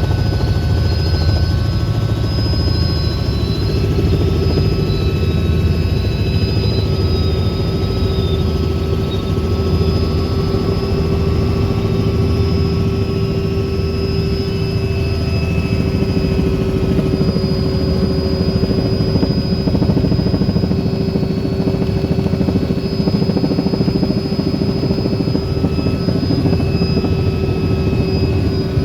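Helicopter in flight, heard from inside the cabin: a steady, loud rotor and engine drone with a held hum and a faint high whine over it.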